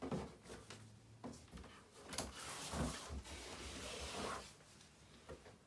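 Packaging being handled during an unboxing: rustling and sliding of box and paper, with a few light knocks, the rustling strongest in the middle.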